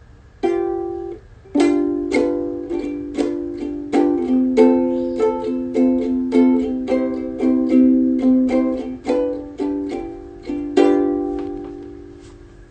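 Ukulele strummed and picked unaccompanied, a run of chords each ringing and fading. About two seconds before the end, one chord is left to ring out and die away.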